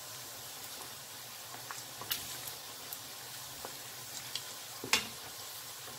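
Pork belly skin-on pieces deep-frying in hot oil into chicharrones: a steady sizzle with scattered sharp clicks and pops, the loudest about five seconds in.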